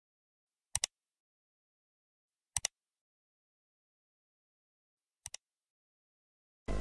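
Three computer-mouse click sound effects, each a quick press-and-release double click, about two seconds apart, the last one quieter. Music starts right at the very end.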